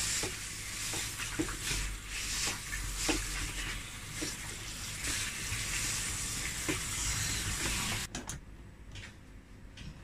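Tap water running in a steady hiss onto cooked macaroni in a plastic colander in a stainless steel sink, with faint light clicks as the pasta is turned by hand. The water sound cuts off about eight seconds in.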